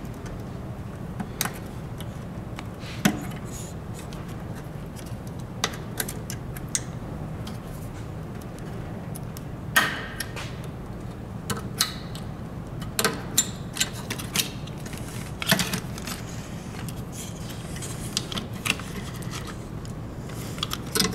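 Irregular small clicks and rattles of screws, hand tools and plastic and metal parts being handled while the weight-adjustment trigger handle is taken off a Grammer MSG95 seat, over a steady low hum.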